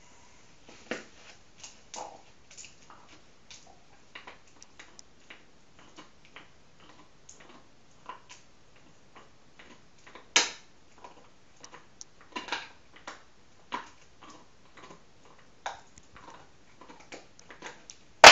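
A dog gnawing a bone treat: irregular, uneven crunches and clicks from its teeth on the bone, with one louder crunch about ten seconds in.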